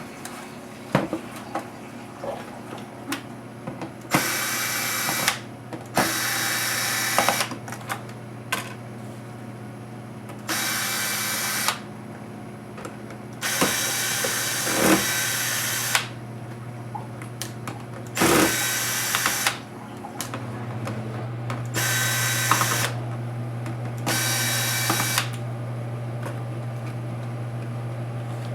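Small power driver, likely a cordless electric screwdriver, running in seven short bursts of one to two seconds as it backs screws out of a laptop case, with small clicks and knocks between the bursts. A steady low hum sits underneath and gets louder near the end.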